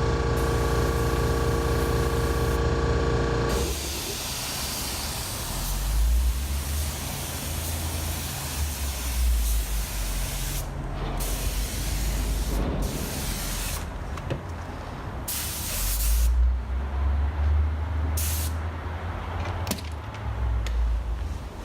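Automotive paint spray gun hissing as paint is sprayed in passes, the hiss stopping and starting several times. For the first three and a half seconds a steady machine hum with several tones runs under it, then stops.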